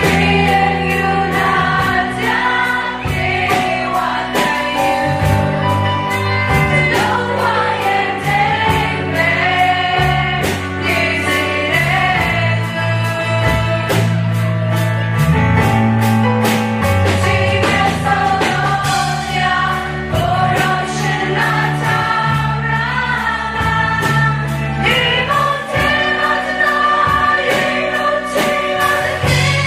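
Congregational worship song: a roomful of voices singing together, with acoustic guitar, electric guitars and a steady beat.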